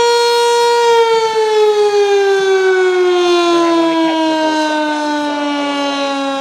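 Sentry 3V8-H tornado siren sounding a loud steady tone. About a second in it starts to wind down, its pitch sliding slowly and steadily lower as its rotor slows.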